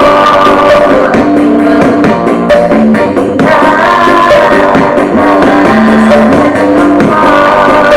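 Loud music with singing and instruments, played through a miniature 2-inch speaker with a small subwoofer.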